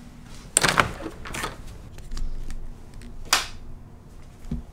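Three short bursts of rustling and brushing, then a soft low thump near the end: handling noise from a bundle of fishing rods being gathered up and carried.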